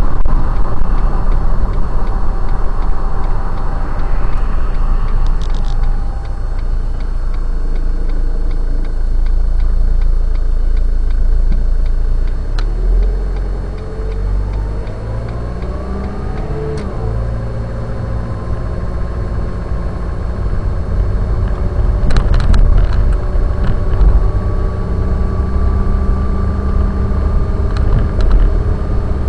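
Car driving, heard from inside the cabin through a dashcam microphone: steady engine and road rumble. The engine note climbs as the car speeds up about halfway through, then keeps rising gently. A few brief clicks stand out.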